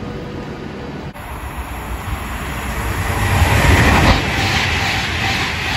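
Avanti West Coast Class 390 Pendolino electric train approaching along the platform and running past, its rush and wheel rumble growing over a couple of seconds to a peak as the front arrives, then staying loud. A sudden cut about a second in ends the quieter sound of a train standing at the platform.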